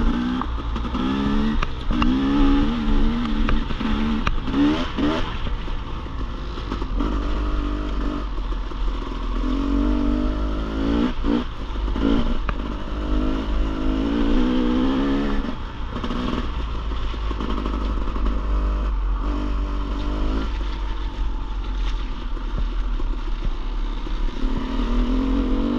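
Dirt bike engine running on a trail, the throttle opened and closed again and again so the pitch keeps rising and falling, with scattered knocks and clatter.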